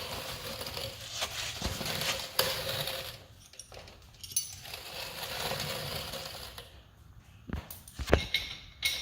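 Hands-on work on a motorcycle: stretches of steady noise, then a few sharp metallic clicks and knocks near the end as tools and small parts are handled.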